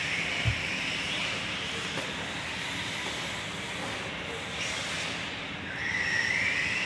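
Radio-controlled off-road cars running on a dirt track: a high motor whine that rises in pitch as the cars accelerate, over a steady hiss, with a single thump about half a second in.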